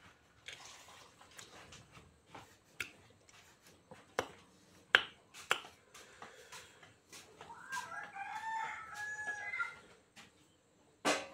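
A rooster crows once, a pitched call lasting about two and a half seconds in the second half. Before it come a few sharp clicks and snaps from the fruit being bitten and pulled apart, and near the end there is a short, loud burst of noise.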